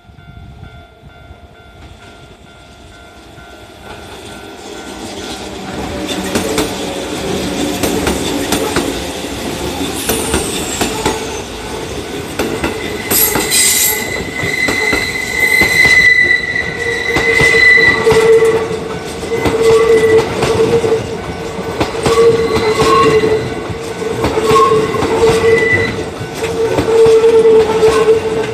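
Kintetsu electric train running through a level crossing, its wheels clacking over the rail joints as it draws near, louder from about four seconds in. A high steady tone rings for a few seconds midway, over a rhythmic pulsing rumble as the cars go by.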